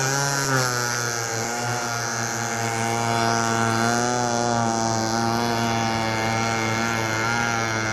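The 31 cc two-stroke weedeater engine of a radio-controlled model hydroplane running at high revs, its pitch rising and falling as the boat speeds and turns on the water.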